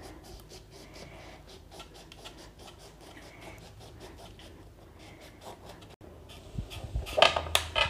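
Kitchen knife sawing through a raw bell pepper, a faint scratching with many small crisp crackles. About seven seconds in come louder crunches and a couple of low knocks as the pepper is handled and split into halves.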